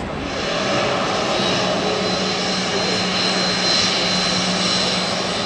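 Jet aircraft engines running: a steady rushing noise with a thin high whine and a low hum, swelling a little in the first second.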